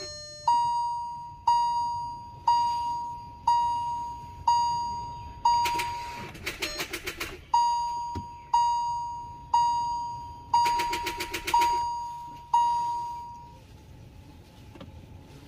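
Hyundai Verna's dashboard warning chime sounding about once a second. Twice, a fast rattle of clicks cuts in as the key is turned: the starter solenoid chattering because the battery is too flat to crank the 1.6 CRDi diesel engine.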